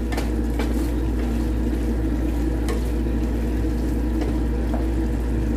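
Pork adobo sauce bubbling and sizzling in a stainless steel pan over low heat as it reduces, with a few faint clicks of a spoon against the pan. A steady low hum runs under it.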